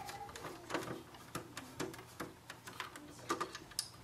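Faint, irregular clicks and scrapes of a small screwdriver turning out a screw from a printer's plastic frame, with a couple of slightly sharper ticks near the end.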